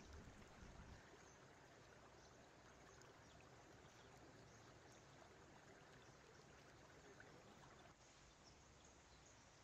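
Faint, steady rush of river water, with a few soft low knocks in the first second and a slight drop in level about eight seconds in.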